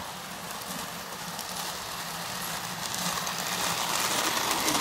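Marx 333 toy steam locomotive running on the track: a steady electric hum with fine clicking wheel clatter, growing louder as it comes up and passes close by near the end.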